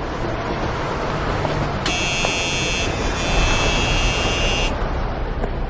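Steady rumbling background noise. A high-pitched buzzing tone starts about two seconds in and cuts off about three seconds later.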